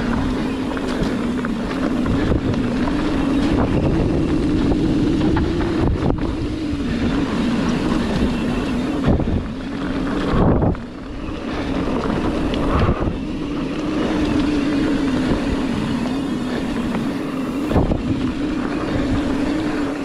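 Ibis Ripley mountain bike riding fast down dirt singletrack: wind buffeting the microphone over the rumble of knobby tyres on dirt, with a steady hum that wavers with speed. There are a few sharp knocks from the bike over bumps, and the noise briefly drops just after the middle.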